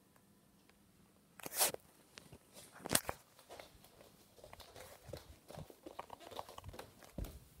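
Handling noise from a phone being carried: a short rustle about a second and a half in, a sharp click about three seconds in, then a run of light knocks and footsteps on a wooden floor.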